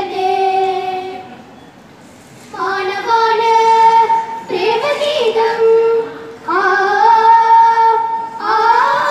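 A child singing a Sanskrit song in long held notes, phrase by phrase, with a short pause about a second and a half in.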